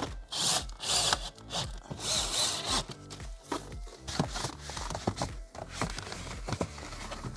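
A cordless drill-driver runs in a few short bursts, driving T20 screws into a plastic dashboard trim panel. After that come light clicks and the rubbing of a cloth wiping the plastic.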